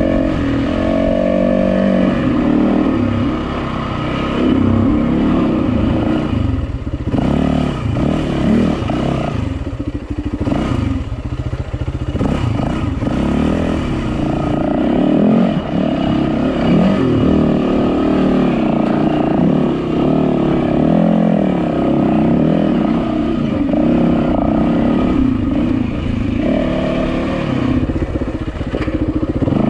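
Yamaha WR450F dirt bike's single-cylinder four-stroke engine revving up and down with the throttle while riding rocky singletrack, with clattering from rocks and the bike over the rough ground.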